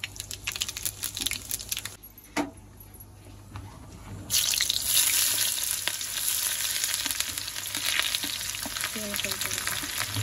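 Cumin seeds crackling in hot oil in a steel kadai, then about four seconds in a sudden loud sizzle as sliced onion goes into the oil and keeps frying steadily: the start of a tempering for kadhi.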